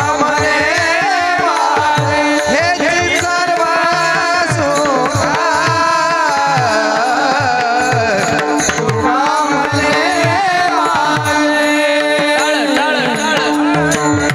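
Devotional kirtan music: a voice sings a winding melody over a held drone, with hand-drum strokes that drop in pitch keeping a steady rhythm.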